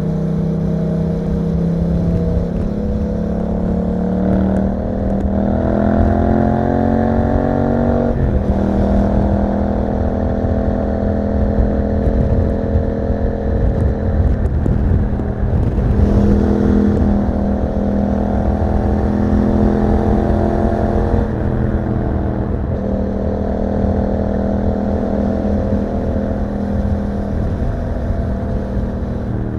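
Yamaha MT-07's 689 cc parallel-twin engine through an Akrapovič exhaust, riding at speed. The pitch climbs steadily for a few seconds as the bike accelerates, drops abruptly about eight seconds in, then holds fairly steady with a few smaller changes in revs further on, over a steady low rush of wind.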